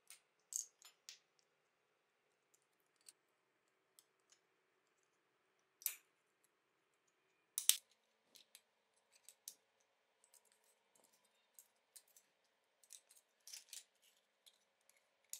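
Scattered small clicks and taps of toy model car parts being handled and snapped together, with a few louder clicks about six and eight seconds in and a quick cluster near the end.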